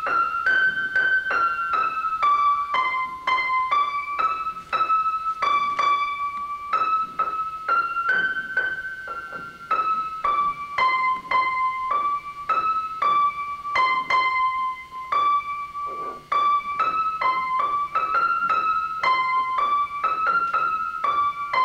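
Piano played one note at a time: a simple single-line melody picked out in the upper register, about two to three notes a second.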